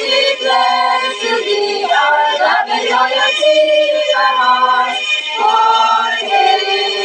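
A group of young women singing a university hymn together, on the line 'We pledge to thee our love and loyalty in our hearts for aye'.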